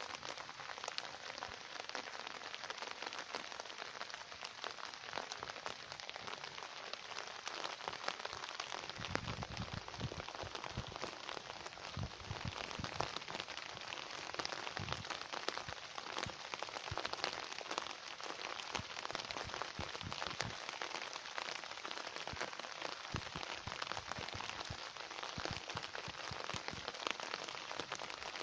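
Summer rain falling steadily, a dense hiss of countless small drop ticks. From about a third of the way in, heavier drops land with deeper thuds among them.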